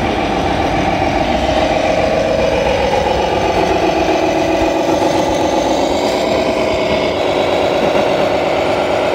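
Simulated diesel truck engine from an RC model truck's sound module, running steadily at low revs and rising slightly in pitch about six seconds in.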